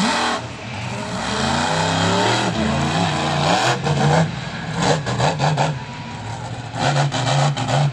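Monster truck engine revving up and down as the truck drives and turns on dirt, its pitch rising and falling repeatedly.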